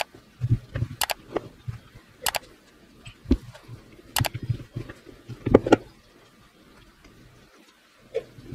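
Hard plastic cordless-drill housing halves being handled, pressed together and set down on a wooden table: several sharp plastic clicks and dull knocks at irregular intervals, the loudest knock about five and a half seconds in.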